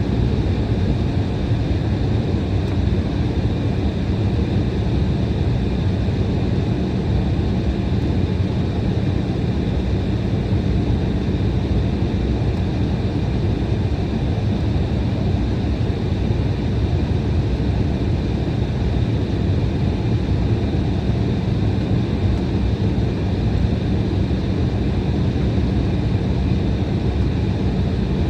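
Steady cabin noise inside an Embraer E175 airliner: its General Electric CF34-8E turbofan engines running at an even setting under the rush of cabin air, with a steady low hum and faint high whining tones.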